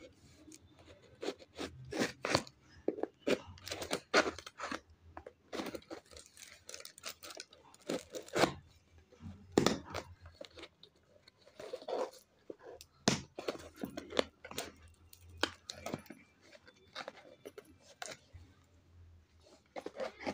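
A cardboard parcel sealed with packing tape being torn open by hand, a string of short, irregular rips and scrapes of tape and cardboard.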